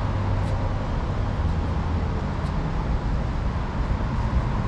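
City street traffic: a steady low engine hum from nearby vehicles over general road noise.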